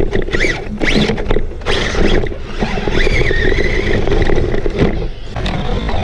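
Onboard sound of an RC off-road buggy racing on a dirt track: the motor whines up and down in pitch with the throttle over a heavy rumble of tyres, dirt and wind on the car-mounted microphone.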